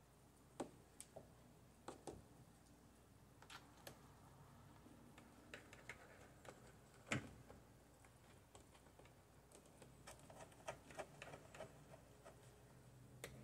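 Faint, scattered small metal clicks and ticks of a screw and screwdriver being worked into a sun visor's mounting bracket, the sharpest about halfway through and a quicker run of them near the end.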